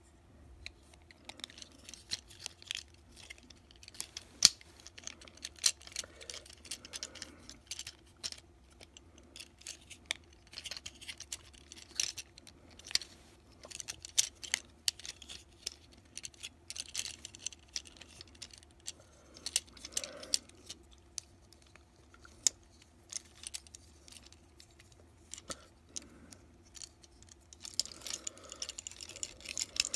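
Plastic clicks and snaps of a Transformers Siege Chromia action figure's joints and panels being moved by hand during its transformation. The clicks come irregularly throughout, with one sharper snap about four seconds in.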